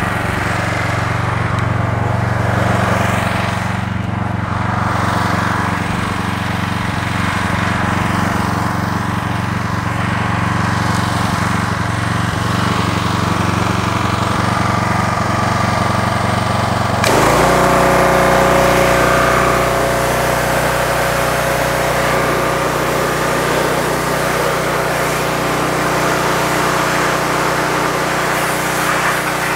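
Small gas engine of a pressure washer running steadily. About two-thirds of the way through the sound changes abruptly, and the hiss of the high-pressure water jet spraying the transmission casing joins the engine.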